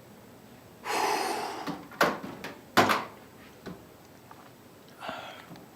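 Microwave oven door being handled: a short rustling burst, then two sharp clacks less than a second apart, and another short rustling burst near the end.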